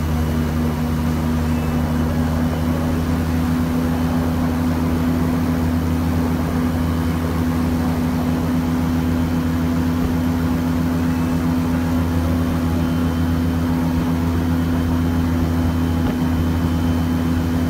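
Airboat engine and propeller running steadily at cruising speed, a constant drone with a strong even hum that does not change.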